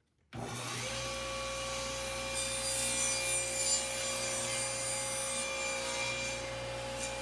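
Table saw running steadily while a crosscut sled is pushed through the blade, the blade cutting across a thin board; the cut is loudest from about two to four seconds in.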